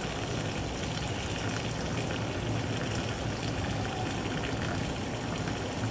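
Water running steadily from a tap into a filling bathtub, the stream splashing onto a loofah in foamy bathwater.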